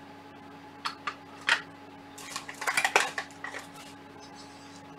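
Small metal screws clinking and rattling in a parts tray as a hand picks through them: a few separate clicks, then a short burst of rattling about two to three seconds in.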